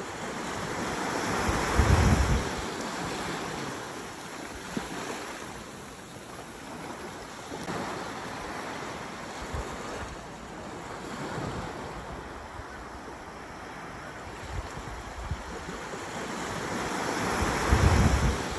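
Sea surf washing on a beach, with wind gusting over the microphone; the noise swells loudest about two seconds in and again near the end.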